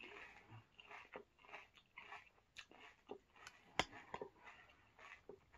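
A person chewing a mouthful of crunchy Oatmeal Crisp cereal: faint, irregular crunches throughout, with one sharper click a little under four seconds in.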